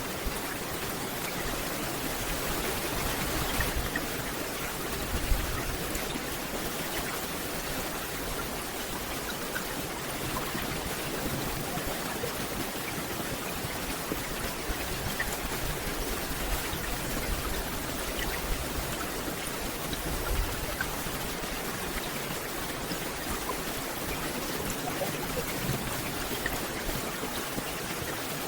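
Steady rain falling on a forest canopy, a dense even hiss with scattered individual drops pattering close by and a few louder drips, around five seconds in and around twenty seconds in.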